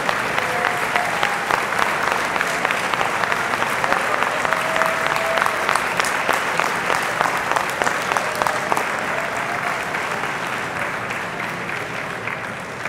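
Large crowd applauding steadily, the clapping dying down near the end.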